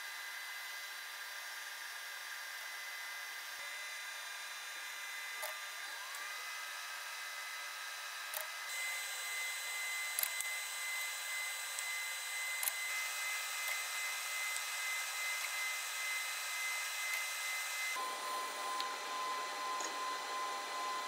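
Homemade laser powder-bed metal 3D printer running a print: a steady machine whir with several held high tones, hiss and a few faint clicks. A motor tone rises and levels off about six seconds in, and the sound shifts abruptly twice.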